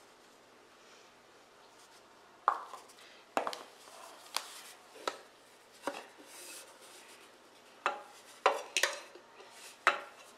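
Metal bread machine pan knocked against a countertop to turn out the risen brioche dough: about nine sharp, irregularly spaced knocks, beginning a couple of seconds in.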